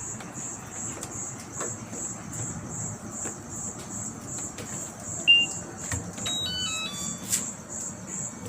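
Washing machine control panel beeping: one loud beep about five seconds in, then a short run of falling electronic tones. A quick high chirp repeats about three times a second over low background noise.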